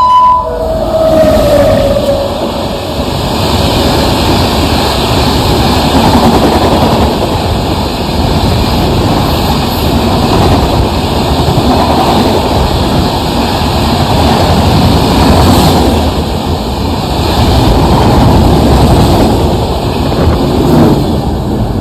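Indian Railways express train with red sleeper-class coaches passing close at speed: a loud, steady rumble of wheels on the rails with wind noise, swelling a little as the coaches go by.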